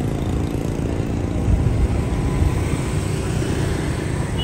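Steady low rumble of a moving road vehicle: engine and road noise.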